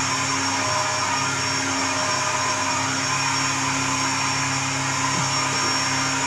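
Household vacuum cleaner running steadily: an even motor drone with a thin high whine.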